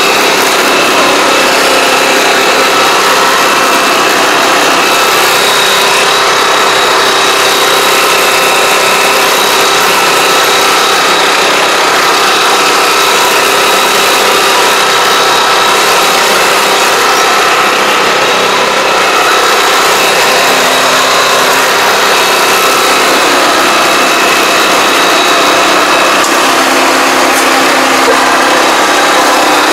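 Small engine of a self-propelled crawler pesticide sprayer running steadily under load, a loud, even drone with a constant high whine.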